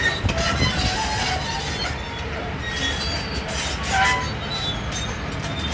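Diesel construction machinery running at a steady rumble, with short high-pitched pings scattered through it.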